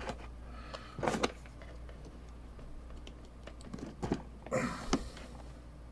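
Handling noise from a handheld radio and its programming-cable plug being fitted into the side accessory jack: a few short plastic clicks and knocks, with a brief scraping rub about four and a half seconds in.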